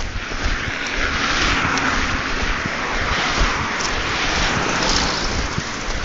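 A car driving past on the street, its tyre and engine noise swelling in the first second or two and easing off near the end, over wind rumbling on the phone's microphone.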